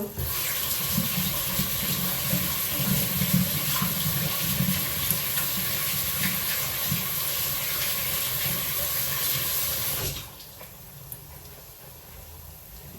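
Kitchen tap running in a steady stream for about ten seconds, then shut off suddenly.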